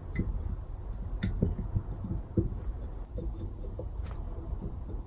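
Light knocks and clicks of a metal turbine housing being handled and worked onto a turbocharger cartridge by hand, with a steady low rumble underneath.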